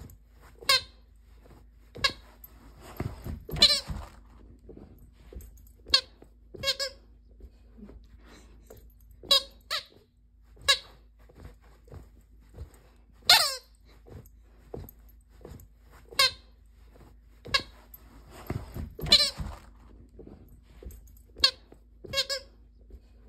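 A dog biting a squeaky toy, making it squeak in short, sharp squeaks every second or two, some coming in quick clusters; the loudest squeak comes about halfway through.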